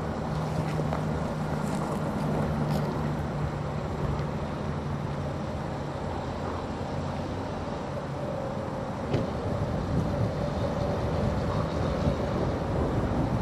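Steady mechanical drone at a stone-train unloading, from a diesel locomotive running with the train. A low hum carries the first half. A higher steady whine comes in about two-thirds of the way through, and a single sharp knock sounds about nine seconds in.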